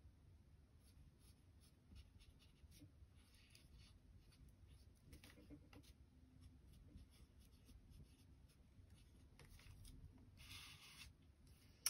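Pencil scratching faintly on paper while a small drawing is sketched, with a short rustle of the paper being handled about ten seconds in.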